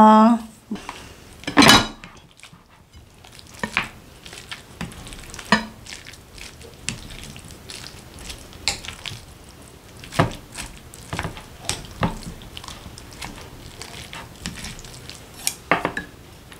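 Utensils and chopsticks clinking and scraping against a glass bowl as curry and rice are stirred together, in scattered irregular taps with a few sharper clinks.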